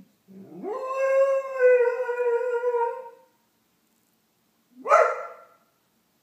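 Doberman howling: one long howl that glides up at the start and then holds steady for about three seconds, then a short second howl about five seconds in.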